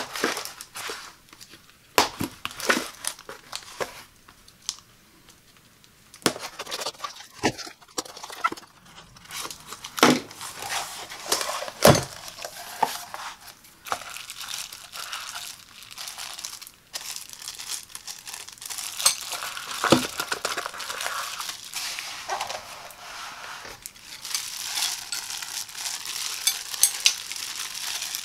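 Hands unboxing a taped cardboard mailer: tape pulled away and cardboard handled, with sharp taps and knocks. Near the end, the plastic wrapping around a set of stainless steel dinner knives crinkles densely.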